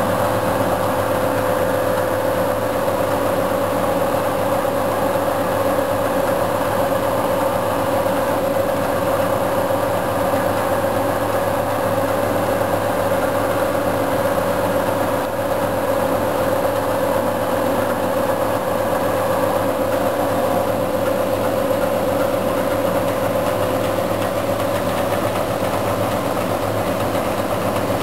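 A 1995 Bridgeport V2XT CNC vertical machining center running under power: a steady mechanical hum with one constant whine, unchanging in pitch and level.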